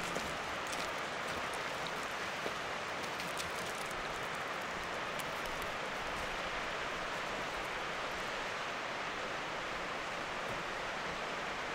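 Steady rush of running mountain water, an even hiss with no let-up, with a few faint clicks in the first few seconds.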